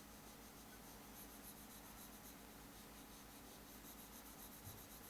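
Faint, rapid scratching of a stylus scribbled back and forth on an interactive whiteboard, colouring in a shape, in two runs of strokes over a low steady hum.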